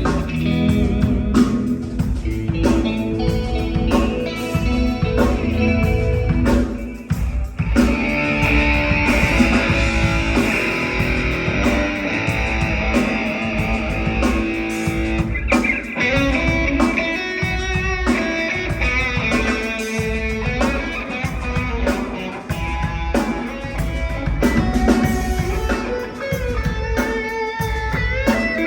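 Fender American Professional II electric guitar played through an amplifier, with a band's drums and bass behind it; a bright note is held for several seconds about a third of the way in.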